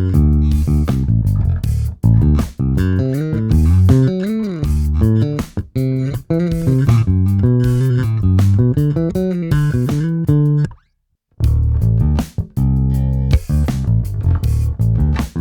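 A Warwick Corvette $$ NT five-string electric bass played in a run of plucked notes, some with sliding pitch. The playing stops for about half a second roughly eleven seconds in, then picks up again.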